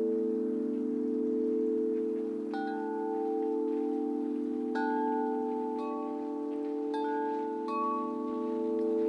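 Large tubular metal wind chimes ringing with deep, long-sustained overlapping tones. Fresh strikes sound about five times, every second or two, each adding a brighter tone over the steady ring.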